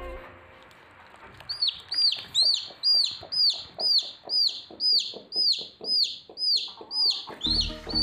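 Newly hatching desi chick peeping from the broken egg: a steady run of short, high peeps, about two to three a second, each rising then falling in pitch.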